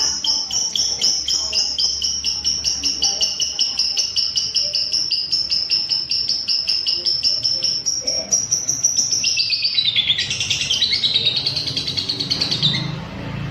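Lovebird singing a long, unbroken ngekek trill: a rapid, high-pitched chatter of about ten notes a second. About two-thirds of the way in it drops lower and turns rougher, then breaks off near the end.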